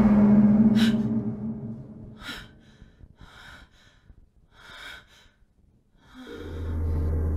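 A woman breathing hard in four short gasps about a second and a half apart: the breathless gasps of someone just woken in fright from a nightmare. Music fades out under the first breaths, and a low music drone swells in near the end.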